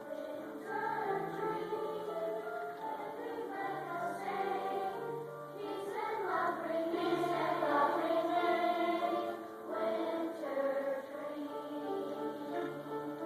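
Choral music: several voices singing sustained notes together, the chords shifting every second or two and swelling a little past the middle.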